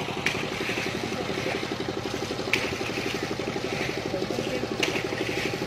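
A small engine running steadily with a fast, even pulse, with a sharp click about every two seconds.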